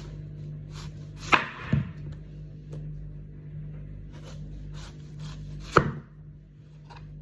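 Sharp knocks: two loud strikes, about a second and a half and about six seconds in, the first followed closely by a smaller one, with a few faint taps between, over a steady low hum.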